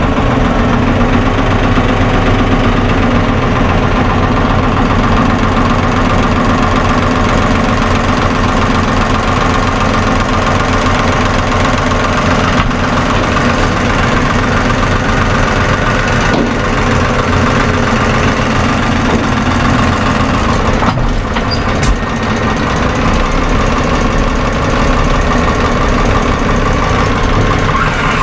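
Tractor diesel engine running steadily, heard from inside the cab, while the hydraulic tipping trailer behind it is raised to unload manure. A single brief click is heard late on.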